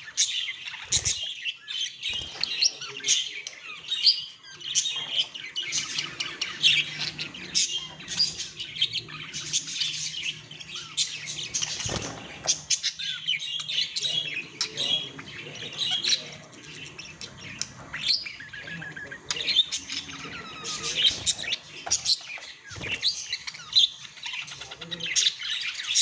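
Budgies (budgerigars) warbling and chattering without pause: a dense stream of quick, high chirps, trills and squawks, the warble typical of a male budgie. A few sharp clicks break through now and then.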